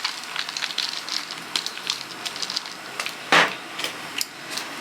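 Bark-chunk potting mix being poured into a plant pot: a continuous crackle and patter of bark and soil pieces, with one louder thump about three and a half seconds in.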